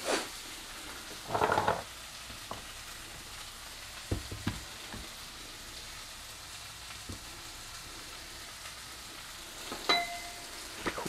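Onions and garlic sizzling steadily in a frying pan, with a few knocks as the camera tripod is handled about four seconds in. Near the end a pot lid clinks with a short ring as it is lifted off the rice pot.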